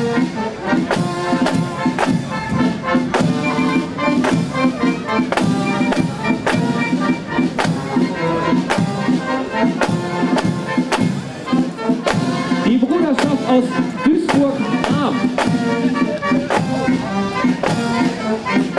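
Brass marching band playing a march, the melody carried by held brass notes over a steady drumbeat of about two beats a second.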